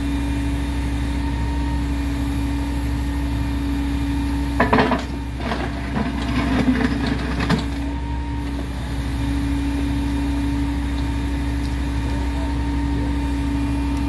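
Engine of track-work equipment running steadily, with a few seconds of knocking and clattering about halfway through.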